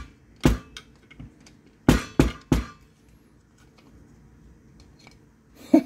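Metal tools and parts being handled and set down: one sharp knock, then three quick knocks about two seconds in, with a few faint clinks.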